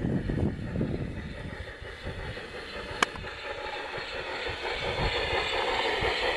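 Garden-scale model steam train, a locomotive pulling coaches, running along outdoor track with a steady rolling rumble and one sharp click about three seconds in.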